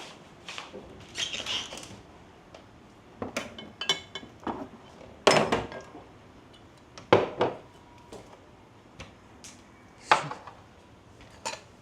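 Kitchen pots, pans and metal utensils clinking and knocking: a dozen or so scattered clanks, the loudest about five, seven and ten seconds in.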